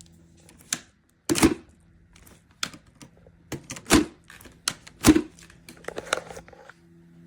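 A series of sharp clicks and knocks at irregular intervals, the three loudest about a second and a half, four and five seconds in, over a faint steady hum.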